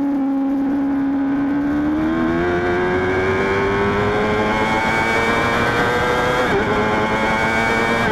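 Honda CBR600RR's inline-four engine holds a steady note for about two seconds, then climbs steadily in pitch under hard acceleration. There is one quick upshift dip about six and a half seconds in, and the pitch keeps rising after it.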